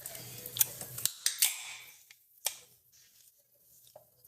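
Several sharp clicks, most of them in the first second and a half and one more about two and a half seconds in, then only faint ticks.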